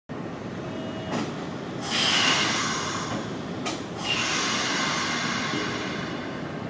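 Nishitetsu 5000 series electric train pulling into a station platform and slowing, its wheels and brakes giving two stretches of high squealing hiss, about two and four seconds in, over the steady rumble of the cars on the rails.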